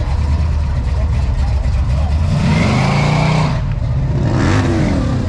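A car engine revved twice over a steady low rumble. The first rev rises in pitch about two seconds in; the second rises and falls again about four seconds in.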